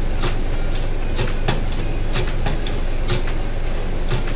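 A steady low mechanical hum with frequent irregular sharp metallic clicks and knocks, as gearbox parts are handled and worked on.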